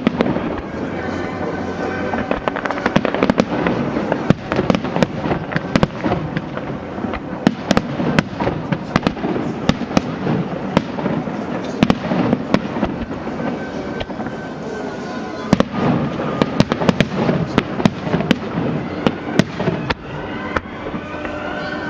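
Aerial fireworks display: shells bursting in a dense, continuous run of sharp cracks and pops, several a second, over a crackling rumble.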